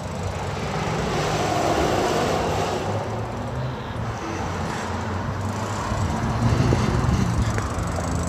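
Yamaha YZF-R6 sport bike's 600 cc inline-four running while under way, with steady rushing wind and road noise over it. The engine note holds mostly steady, with small shifts in pitch.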